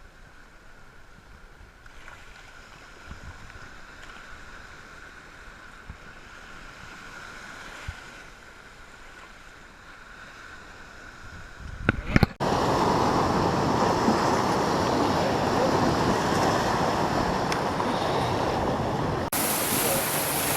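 Wind and ocean surf on a beach, with wind buffeting the microphone. Faint and steady at first, then suddenly much louder about twelve seconds in, and hissier near the end.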